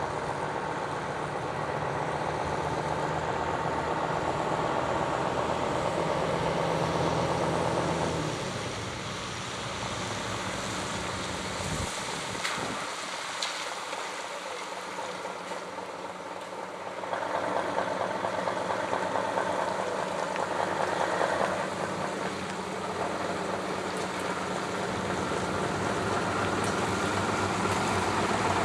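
Heavy tractor-trailer's diesel engine running slowly under a steady hiss. Its low engine hum fades about eight to twelve seconds in, and the hiss grows louder again later.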